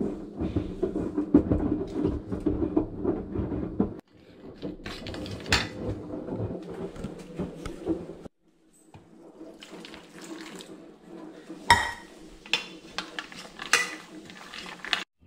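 Plastic spoon scraping and clicking in a plastic bowl as puppy kibble is mixed with milk, with a couple of sharper knocks in the second half.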